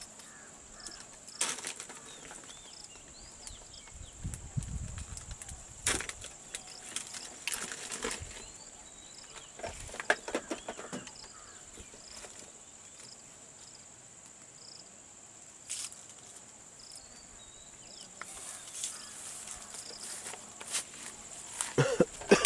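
A few sharp clicks and knocks of a dart gun being loaded and handled, over a steady high insect drone with small repeated chirps. Near the end come a few louder knocks.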